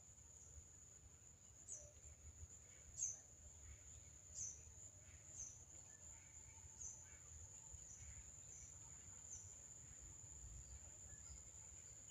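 Faint, steady high-pitched insect drone, with a handful of short chirps scattered over the first ten seconds, the loudest about three seconds in.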